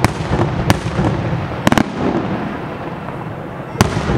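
Aerial firework shells bursting: sharp bangs, with a quick double bang a little under two seconds in and another near the end, over a continuous low rumble.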